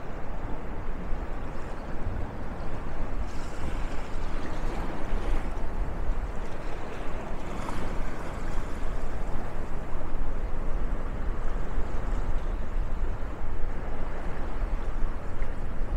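Steady rushing outdoor noise with a deep rumble underneath, swelling a little a few seconds in.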